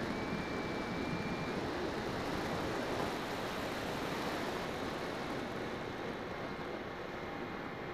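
Bixler 2 RC foam plane in flight, heard from its onboard keychain camera: a steady rush of airflow over the microphone mixed with the electric pusher motor and propeller. A thin steady whine shows briefly near the start.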